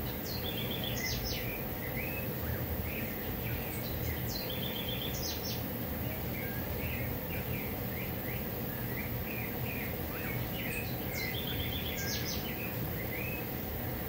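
Birds singing: one bird repeats the same short song phrase three times, a falling whistle, a quick run of notes and a few high sharp notes, while shorter chirps come in between. A steady low background noise runs under the song.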